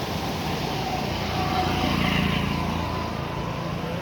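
A motor vehicle passing on the road, its engine growing louder to a peak about two seconds in and then fading, over the steady rush of the flooded river.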